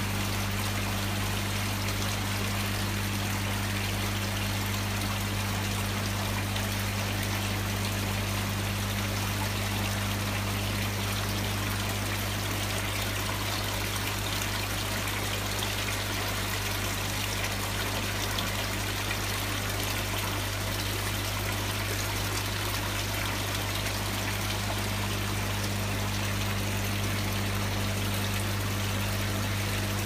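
Water trickling steadily from a fish sculpture's mouth into the basin of a self-contained floor fountain, over a steady low hum.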